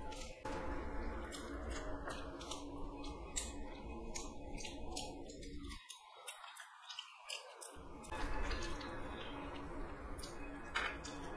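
Fingers mixing rice and a crunchy fried topping into curry on a plate, close-miked: a run of sharp crisp clicks and crackles over a soft squishing rustle, easing off for a couple of seconds midway.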